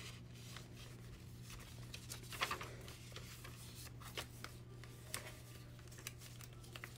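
Faint rustling and soft clicks of thick coffee-dyed paper as the pages of a handmade junk journal are turned and a tucked-in flap is lifted, loudest about two and a half seconds in. A low steady hum runs underneath.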